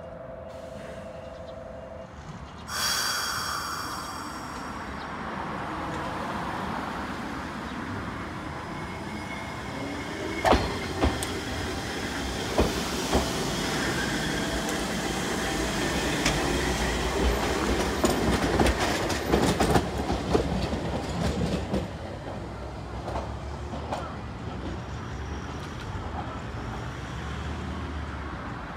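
Hankai Tramway streetcar No. 503 pulling out: a short steady tone, then a loud ringing signal about three seconds in that dies away. The tram then rolls past with motor and wheel noise, its wheels clicking over rail joints and points, loudest in the middle and easing off toward the end.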